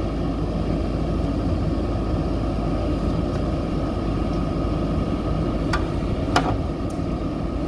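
JCB 3DX backhoe loader's diesel engine running steadily at idle, a low even rumble, with a couple of short sharp clicks near the end.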